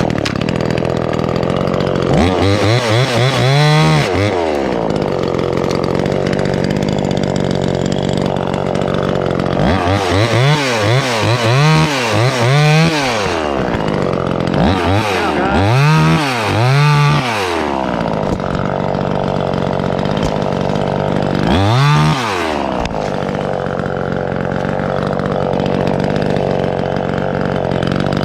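Gas chainsaw running at idle and revved up and back down several times in short bursts while limbs are cut.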